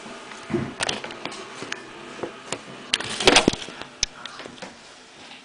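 Hands working modelling clay on a wooden table right at the microphone: scattered taps, knocks and rubbing, with a louder rustling burst about three seconds in.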